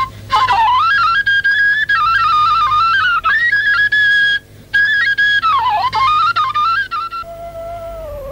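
Background music: a solo flute playing a wavering, ornamented melody in a traditional style, with a brief break about four and a half seconds in, then a lower steady note near the end.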